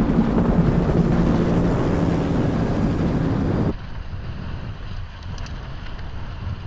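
Wind buffeting the microphone over choppy water around a sailing dinghy under way, with a faint low hum underneath at first. A little over halfway through it drops suddenly to quieter wind and water.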